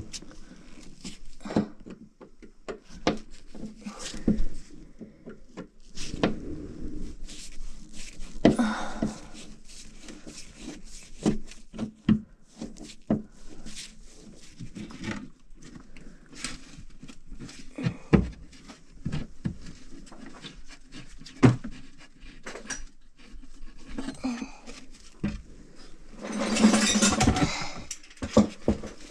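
Scattered knocks, clicks and clatters of hand tools as a wood panel under a kitchen sink is worked loose, with a louder scraping rasp lasting about two seconds near the end.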